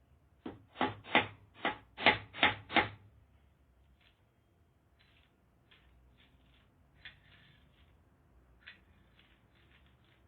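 Hammer driving a nail into wood: seven quick, sharp blows in under three seconds, followed by faint, scattered light clicks.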